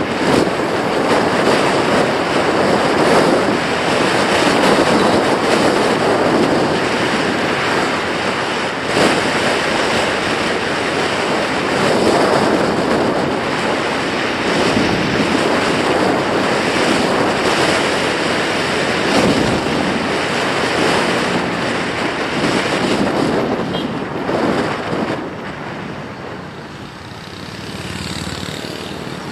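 Wind buffeting the microphone, a loud rushing noise that swells and eases for the whole stretch and dips near the end.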